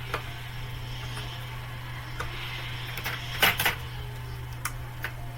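Scattered small clicks and taps of computer parts being handled and unplugged while an all-in-one PC is taken apart, loudest as a quick double click about three and a half seconds in. A steady low hum runs underneath.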